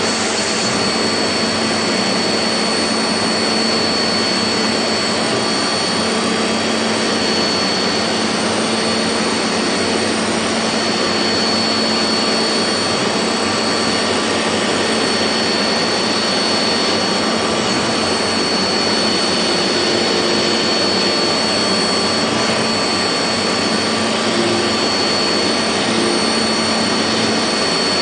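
CNC machine running steadily: a constant loud rushing noise with a steady high whine and a low hum underneath.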